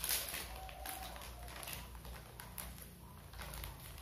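Faint, irregular crinkling and ticking of plastic snack-bread wrappers being handled and opened by hand.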